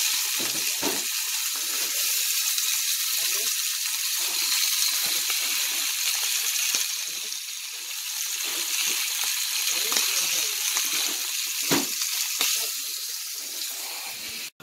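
Food sizzling in hot cooking oil, a steady hiss with irregular crackles and a few sharper pops, cutting off abruptly near the end.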